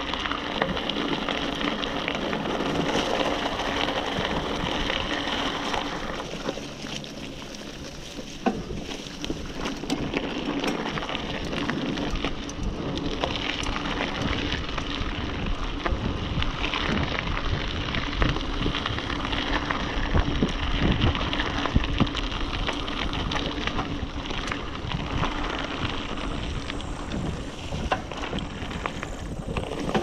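Specialized Rockhopper hardtail mountain bike ridden along a dirt singletrack: tyres rolling with the bike rattling and knocking over bumps, and wind rushing on the microphone. It goes quieter for a few seconds about six seconds in, and a few harder knocks come about twenty seconds in.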